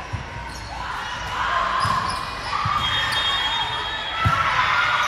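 Volleyball rally: a volleyball struck about four times, sharp thumps off players' forearms and hands, mixed with sneaker squeaks on the court and players' voices, echoing in a large gym.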